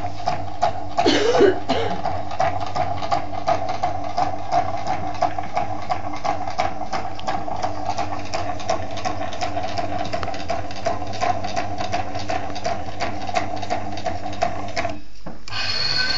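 Small electric motor and belt-and-pulley drive of a model automatic car-parking system running steadily, a constant hum with a regular ticking. It stops abruptly about a second before the end, and a higher-pitched whine takes over.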